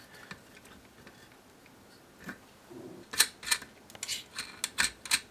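Quiet at first, then from about three seconds in a string of sharp, irregular clicks and taps: hands working a plastic filament spool and its printed hub against a steel nut on a threaded rod.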